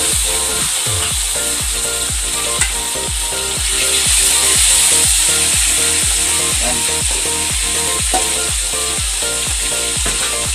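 Fish frying in hot oil in a wok, a steady sizzle, over background music with a steady beat.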